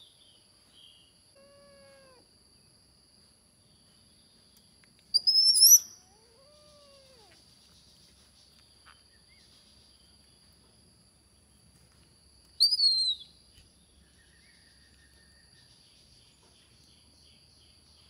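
Kittens meowing faintly a couple of times. Two short, loud, high-pitched squeals about seven seconds apart are the loudest sounds, over a steady high whine.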